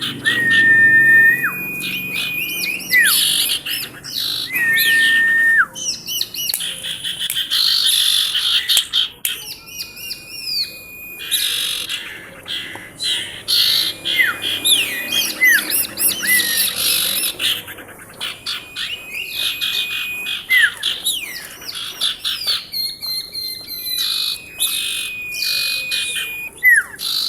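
Female common iora (sirtu, cipoh) calling continuously. Long whistles held on one note end in a quick downward flick, repeated again and again between bursts of fast chattering and trills. This is the busy 'gacor' calling that keepers play to get silent ioras singing.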